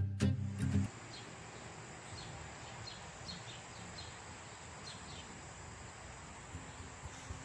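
Outdoor ambience: a steady high-pitched insect trill with short bird chirps repeating every second or so. Guitar music stops about a second in.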